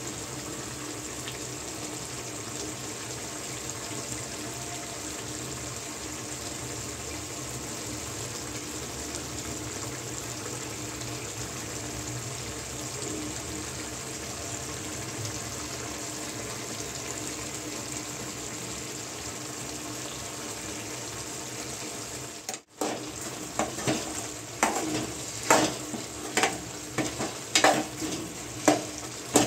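A steady hiss of food cooking in a pan, then after a sudden cut, a spoon knocking and scraping against the pan in quick irregular strokes as the food is stirred.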